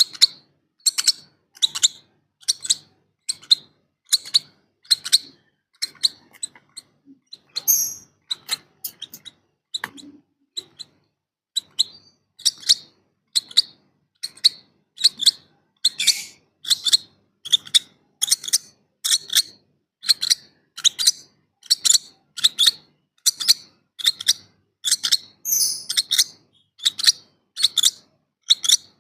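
Lovebird chicks begging for food: short, high-pitched chirps repeated steadily, about one and a half a second, fainter for a few seconds in the middle.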